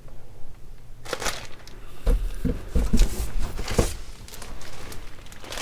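Plastic packaging crinkling and rustling as items are handled, with a few dull thumps of things being set down about halfway through.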